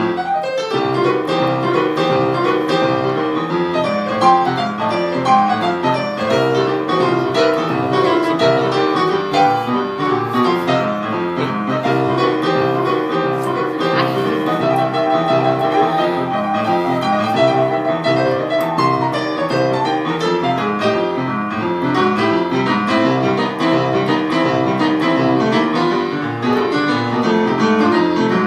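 Piano playing without a break: a steady stream of notes over a regular pulse of low notes.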